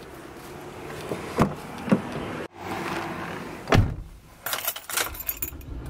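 A couple of footsteps on concrete, then a car door shutting with a single thump, followed by car keys jangling in a quick run of light clicks.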